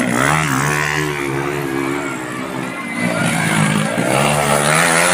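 Small motorcycle engines revving on a dirt track, the engine note rising and falling with the throttle and growing louder again about three seconds in as a bike comes by.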